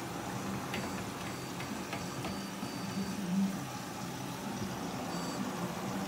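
Front-loading washing machine running mid-cycle, its motor humming steadily as the drum turns the wet laundry. A few light clicks come in the first two seconds.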